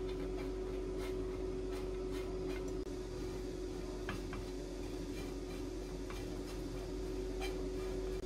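Wooden chopsticks stirring dry, oil-free myeongyeopchae (shredded dried fish strips) in a nonstick frying pan, giving scattered light clicks and rustles, over a steady hum.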